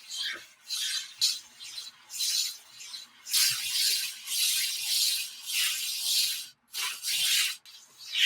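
Rasping, back-and-forth strokes of an abrasive worked by hand over a hard surface, like filing or sanding. Short strokes come about once a second, then a few seconds of continuous scraping in the middle, then separate strokes again.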